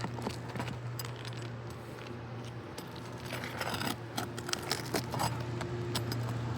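Small metallic clinks and scrapes of a roofing pry bar working under asphalt shingles, breaking the adhesive seal and prying at nails, over a steady low hum.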